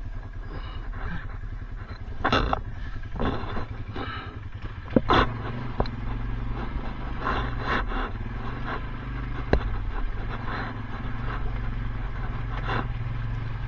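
An ATV engine idling steadily while the quad sits stuck in deep water, with a few short sharp noises on top.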